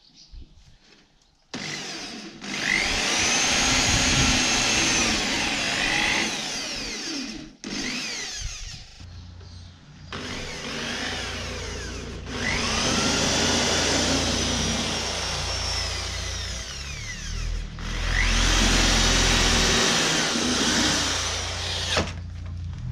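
Electric hand drill drilling into a wooden box in several runs of a few seconds each, the motor whine rising in pitch as it speeds up and falling as it slows at the end of each run.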